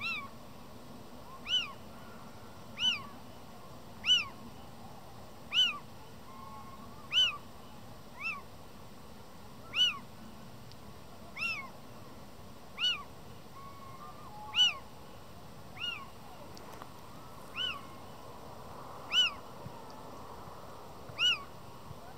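Male little owl giving its cat-like mewing call over and over, one short note that rises and falls, roughly every one and a half seconds, some notes fainter than others. This is breeding-season calling.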